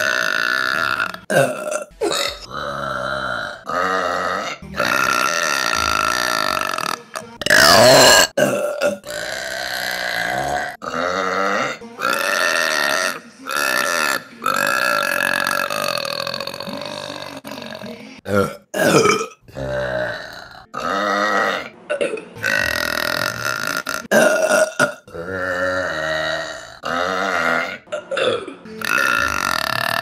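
A young woman burping over and over: a long series of deep, pitched burps, many drawn out for a second or two, with short pauses between them. The loudest comes about eight seconds in.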